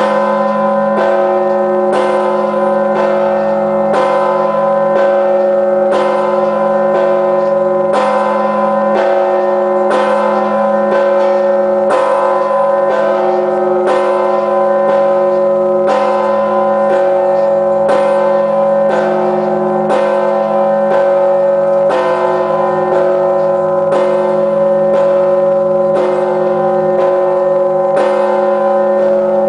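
A 7,150 kg church bell struck at a steady pace of about one stroke a second, close to 58 strikes a minute. Each stroke lands on the long hum still ringing from the ones before.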